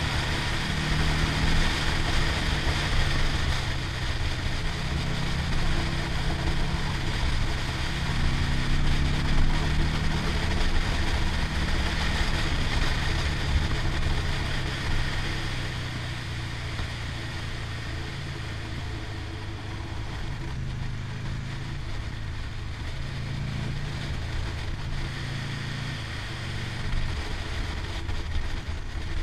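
Motorcycle engine running under way, its pitch stepping up and down with throttle and gear changes, over a steady rush of wind. It is quieter from about halfway on.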